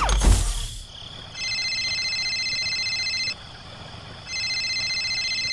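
A loud thump at the start, then an electronic trilling tone with several pitches, sounding in two bursts of about two seconds each, a second apart.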